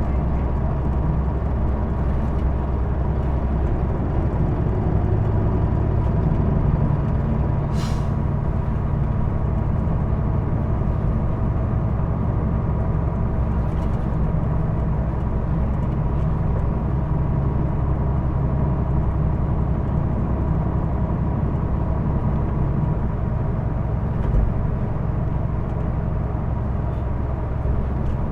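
Hino Blue Ribbon II city bus running on the road, heard from inside the cabin: a steady low engine and road drone with a thin steady whine above it, the abnormal noise this bus is known for. A short burst of air hiss comes about eight seconds in.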